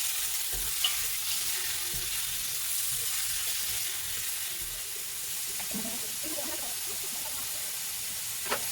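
Sliced onions sizzling steadily in hot sunflower oil in a pan, with a few soft knocks of stirring.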